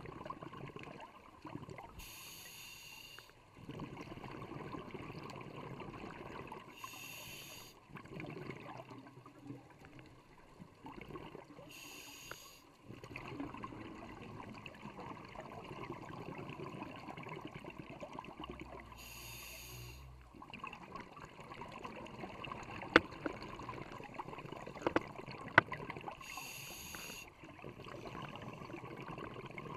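Scuba breathing heard underwater: five hissing breaths through a regulator, spaced five to seven seconds apart, over a steady muffled underwater noise, with a few sharp clicks near the end.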